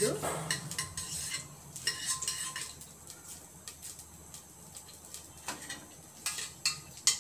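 Metal spoon clinking and scraping against a stainless steel pot, in clusters of sharp clatter at the start and again from about five and a half seconds in, with a quieter stretch between.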